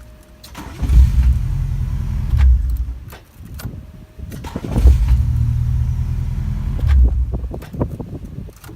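Acura Integra's starter cranking the engine in two attempts, each lasting a few seconds, in a car that will not start. The helper later traces the no-start to an amplifier that stays on and drains the battery.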